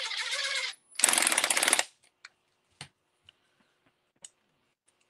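Cordless power screwdriver running in two short bursts as it drives a small screw into a plastic part, the second burst louder. After that, a few light clicks of small tools and parts being handled.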